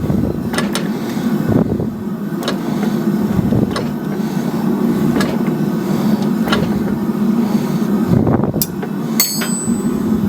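Repeated sharp metal-on-metal strikes, about one every second or so, while 6 mm steel plate is being hot-forged into a dome, over a steady low hum. One strike near the end leaves a clear high ring.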